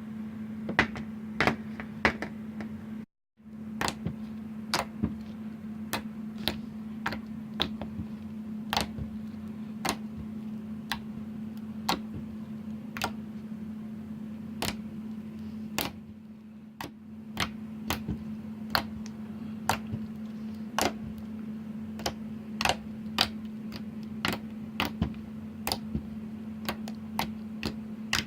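Slime being played with, making sharp, irregular clicks and pops about once a second over a steady low hum.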